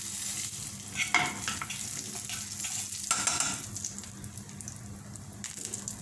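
Hot oil sizzling and crackling in a frying pan around crushed coriander seeds and dried red chillies, with a spoon stirring and scraping through them about a second in and again about three seconds in. The tempering oil is hot enough that the flame has just been turned off; the sizzle eases a little toward the end.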